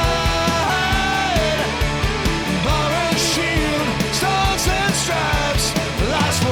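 Rock song playing, with a steady drum beat and a melodic line over it.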